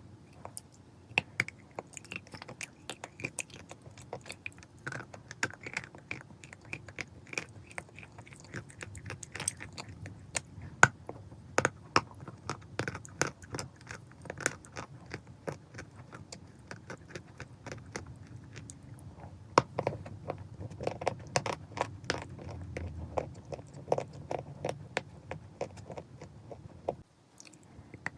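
Chalk being bitten and chewed close to the microphone: a fast, irregular run of sharp, dry crunches, broken by a short quiet gap near the end.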